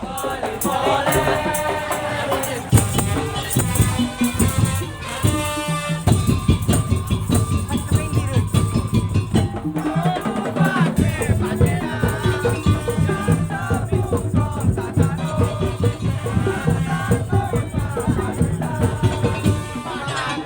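Madurese tong-tong (daul) ensemble playing: a dense, driving rhythm of drums and rattling percussion with a pitched melody over it.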